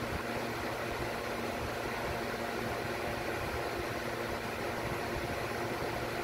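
Steady mechanical hum under an even hiss, unchanging, with no distinct events.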